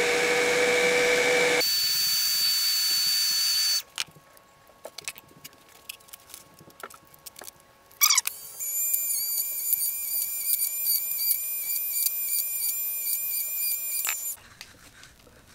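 Handheld heat gun blowing with a steady whine, cut off about four seconds in; after a few seconds of faint handling clicks it starts again and runs until near the end.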